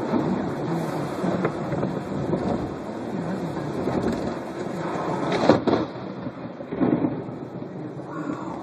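Car driving on a rain-soaked road, heard from inside the cabin: a steady rumble of tyres on wet pavement and rain. A sudden louder burst comes about five and a half seconds in, and a smaller one near seven seconds.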